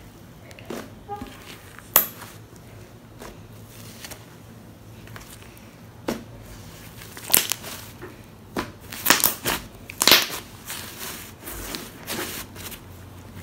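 Hands kneading and squeezing pink slime with wet instant snow mixed through it: irregular sticky pops and crackles as the slime folds and traps air, with a sharp pop about two seconds in and a busy cluster in the second half.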